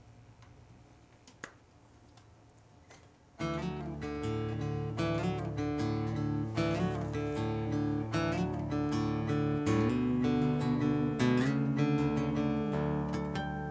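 Acoustic guitar (violão) starting a song: after about three seconds of near quiet with one small click, the guitar comes in suddenly, playing chords that ring on.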